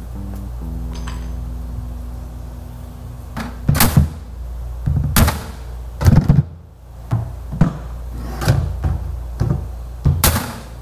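A series of sharp knocks and thuds, roughly one a second, over a steady low hum.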